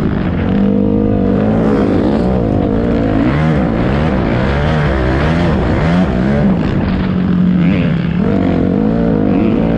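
Dirt bike engine running under load, its pitch rising and falling again and again as the throttle opens and closes, with a brief steadier stretch about two-thirds of the way through.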